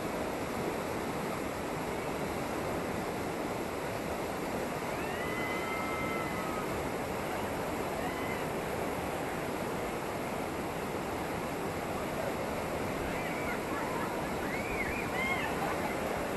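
Whitewater rapids rushing steadily over rock in an even, unbroken roar of water. A few faint high-pitched calls rise over it about five seconds in and again near the end.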